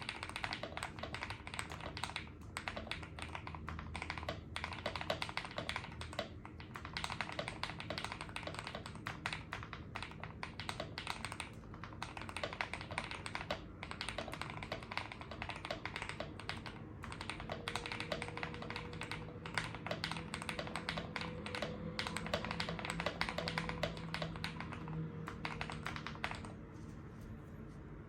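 Fast, continuous typing on a KBDfans KBD67 custom mechanical keyboard, a dense run of key presses with a few short pauses and the soft, "creamy" keystroke sound the board is tuned for. The typing thins out near the end.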